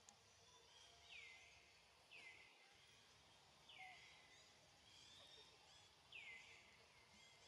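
Faint outdoor background with an animal's short high call repeated five times, every one to two seconds.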